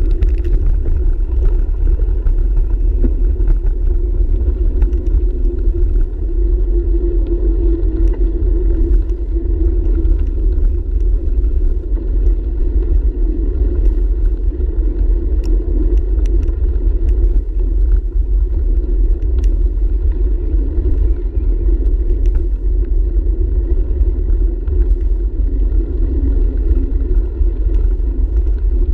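Steady rumble of a bicycle rolling along a paved trail, heard through a handlebar-mounted camera, with wind buffeting the microphone. It runs unbroken, heaviest in the low end.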